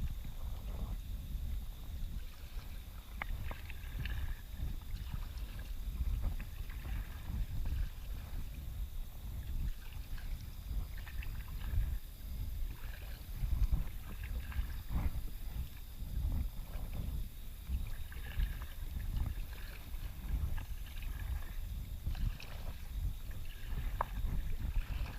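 Ambient sound aboard a fishing boat on open water: an uneven low rumble with scattered light clicks.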